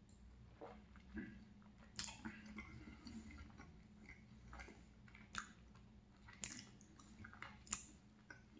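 Close-up faint chewing of a mouthful of soft mini donut, mouth closed, with scattered wet smacks and sticky mouth clicks at irregular intervals.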